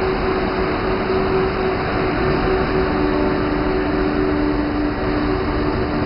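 Electric locomotive hauling a night train rolling slowly past: a steady rumble of wheels and running gear with a humming drone from the locomotive's electrics, a second, lower hum tone joining about three seconds in.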